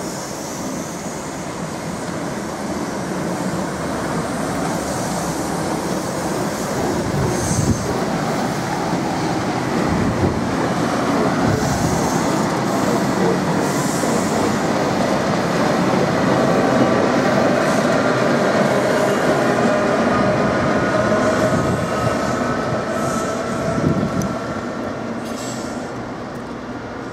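Loco-hauled passenger train of Mark 3 coaches rolling past at speed: a steady rumble of wheels on rail that builds to a peak past the middle and then fades, with a few sharp knocks from the wheels over rail joints and a faint whining tone from the wheels in the second half.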